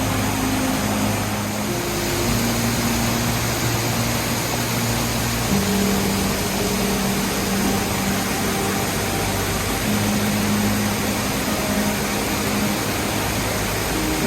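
Steady rush of water at Doryu Falls, a waterfall where groundwater spills out of the cliff face. Over it sits soft background music of held low notes that change every few seconds.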